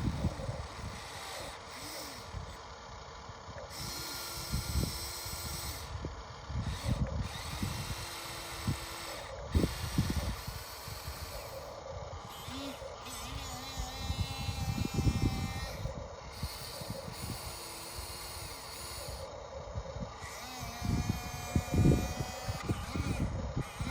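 Small electric motors of a radio-controlled excavator whining in repeated short runs, each rising in pitch as it starts and dropping as it stops, with low knocks and scraping in between.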